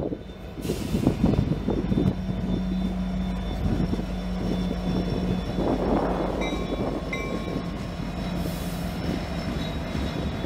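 Freight train passing: the CN SD75i and SD60 diesel locomotives go by and pull away, then covered grain hopper cars roll past with a continuous rumble of wheels on the rails. A steady low hum runs under the rumble through most of the stretch.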